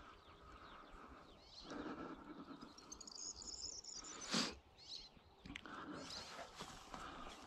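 Footsteps moving through streamside vegetation, with a bird giving a short run of high chirps and one sharp crack a little past halfway.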